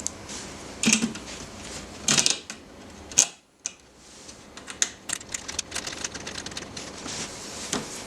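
A few sharp knocks, then a brief break, then a quick run of light clicks and taps.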